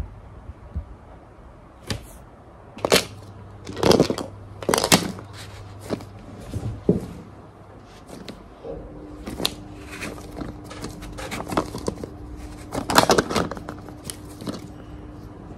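Irregular clicks, taps and short rustles of small objects being handled, loudest around four to five seconds in and again near the end. A faint steady hum comes in a little past halfway.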